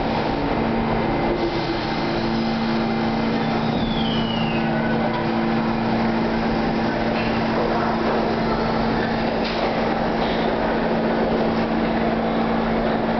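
R68 subway train pulling out of the station and running off down the track: a steady rumble of wheels on rail with a constant low hum that sets in about a second in. A brief high falling squeal sounds about four seconds in.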